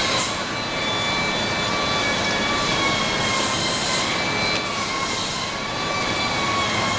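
Steady workshop machinery noise with faint high whining tones that waver slightly, and a few brief rises of high hiss.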